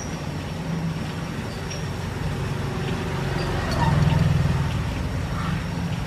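A steady low mechanical hum that swells louder about four seconds in.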